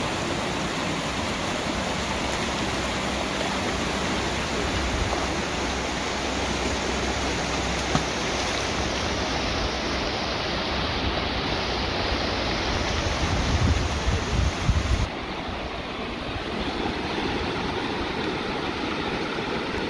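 Shallow rocky river rushing over stones in riffles, a steady loud rush of water. A few low thumps come near the two-thirds mark, and the tone of the rush changes abruptly soon after.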